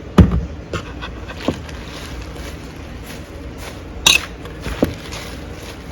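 Salad being mixed by hand with utensils: a few scattered knocks and clicks, the loudest about four and five seconds in, over a steady low background hum.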